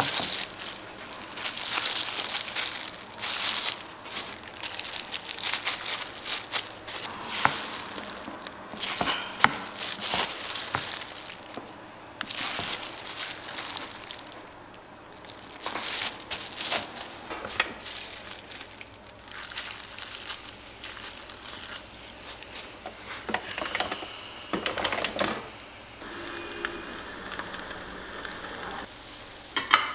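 Disposable plastic gloves and packaging crinkling and rustling in irregular bursts, with small clicks, as hands handle croissant dough on a wooden board.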